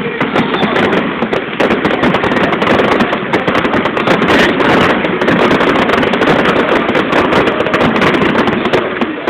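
Fireworks going off in a dense, continuous volley: rapid crackling and popping with many sharp reports, without a pause.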